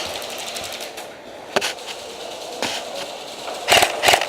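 Airsoft electric guns firing: a rapid full-auto string of clicks, a couple of single shots, then louder clattering bursts near the end.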